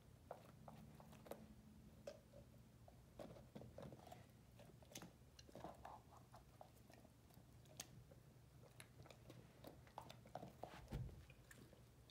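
Great Dane puppy chewing pieces of raw carrot: faint, irregular short clicks of teeth biting into the carrot, with a soft low thump about eleven seconds in.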